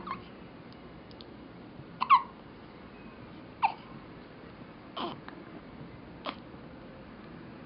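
A newborn baby about two and a half weeks old hiccuping: five short hiccups about a second and a half apart, the loudest about two seconds in.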